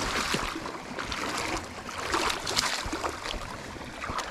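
Legs in waders wading through shallow water, sloshing and splashing irregularly with each step.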